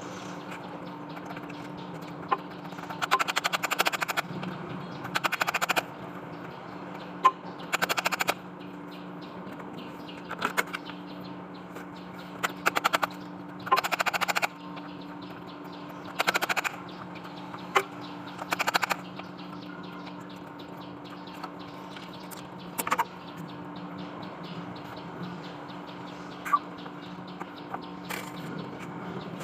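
Short bursts of rapid mechanical rattling, about a dozen, each under a second, over a steady low hum.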